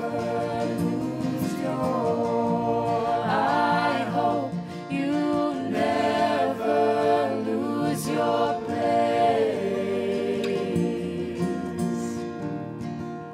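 Background music: a song with singing, several voices layered in harmony over instrumental accompaniment.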